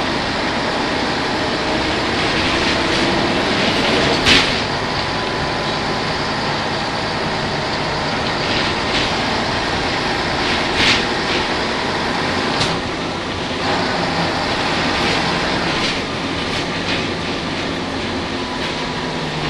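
Aboard an Ikarus 280 articulated bus: its Rába D10 diesel engine running, with body and interior rattling and a sharp knock about four seconds in and another near eleven seconds.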